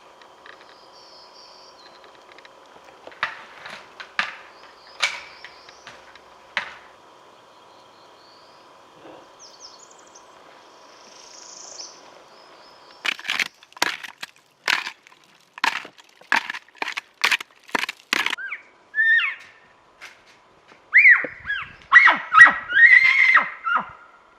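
Sticks and branches snapping: a few scattered cracks, then a quick run of about ten sharp cracks. Near the end come several high, bending squeals typical of elk cow and calf mews and chirps.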